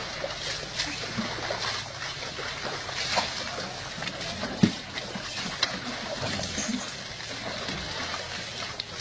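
Baby elephant splashing and sloshing water in a plastic tub, a run of irregular splashes with one louder slap about halfway through.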